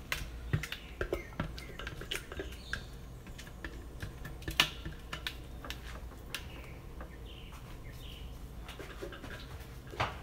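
A silicone spatula scraping mashed eggplant out of a plastic food-processor bowl into a ceramic bowl: scattered soft scrapes and knocks, the sharpest about four and a half seconds in.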